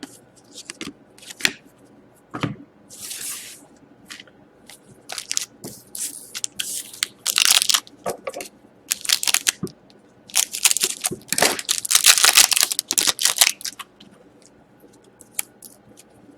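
Trading card pack wrapper crinkling and tearing as it is opened, with cards and packaging rustling in short irregular bursts, busiest between about ten and fourteen seconds in.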